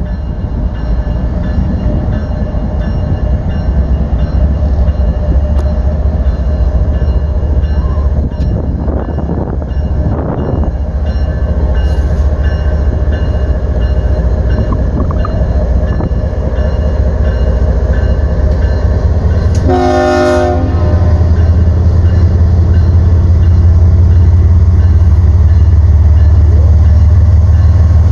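BNSF freight train's diesel locomotives approaching and passing, a heavy low engine rumble that grows louder as the lead units come alongside. About two-thirds of the way through, the locomotive horn sounds one short blast of about a second.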